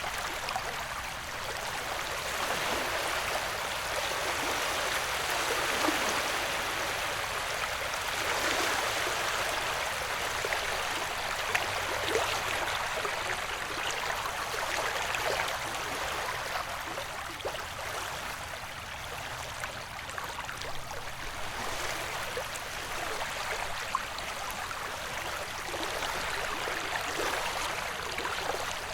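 Ocean-wave ambience: a steady wash of water noise that swells and eases slowly.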